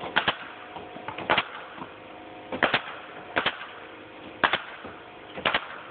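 Pneumatic nail gun firing about six times, roughly once a second, each shot a sharp crack, some of them doubled, as siding panels are nailed up.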